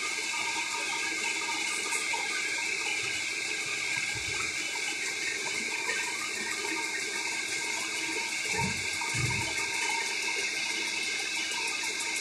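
Metal lathe running steadily: an even rushing hiss with a constant high whine. A few dull low thumps come about four seconds in and twice more around eight to nine seconds.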